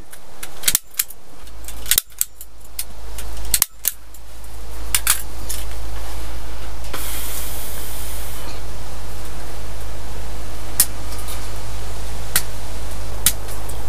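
Three sharp knocks in the first few seconds, then steady wind buffeting the microphone as a low rumble, with a few light clicks.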